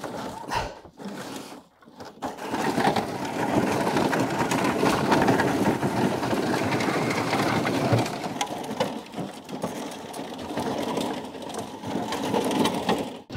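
Heavy 3D-printed plastic tank pushed by hand, unpowered, over a dirt and gravel track: irregular scraping, clicking and crunching from its wheels and a detached plastic track dragging over the ground. The sound becomes dense and continuous about two seconds in.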